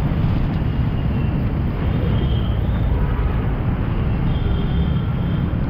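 Motorcycle and car traffic running along a wet road, mixed with a steady low rumble of wind on the microphone.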